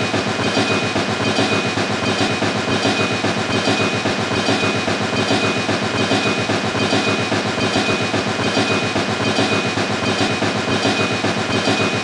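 Toy steam-style locomotive running along plastic track with a steady, rapid clatter and a thin steady whine.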